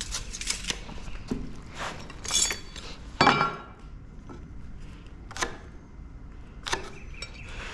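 Tape measure blade retracting, then a metal speed square set on a wooden board and clinking against it as a cut line is marked: a few scattered metallic clinks and knocks, the loudest about three seconds in with a brief ring.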